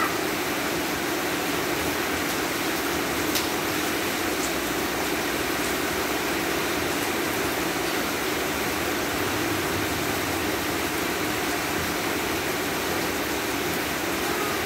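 Heavy rain falling steadily, an even hiss with no let-up. A faint single tick about three seconds in.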